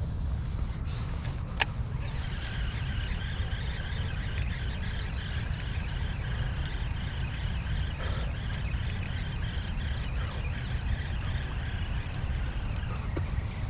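Baitcasting reel being cranked to retrieve the lure: a faint steady whir of the reel's gears that starts just after a click about a second and a half in and stops near the end. A steady low rumble runs underneath.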